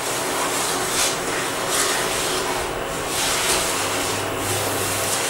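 Wooden spatula stirring sugar into dry roasted semolina, wheat flour and gram flour in a non-stick frying pan: a gritty rubbing and scraping in repeated strokes, about one a second.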